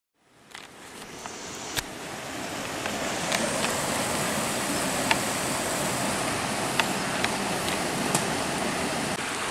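Steady rushing outdoor background noise that fades in over the first couple of seconds. A handful of short, sharp ticks sound through it, the loudest about two seconds in.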